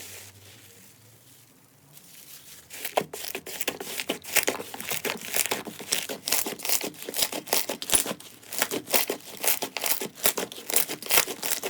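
Slime worked by hand: after a faint quiet start, dense crackling and popping begins about three seconds in and carries on as rapid clicks, several a second.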